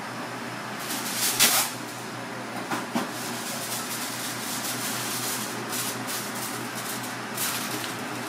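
Aluminium foil being handled: a sharp crackling rip about a second and a half in, then lighter crinkling rustles as the sheet is shaped, over a steady kitchen hum.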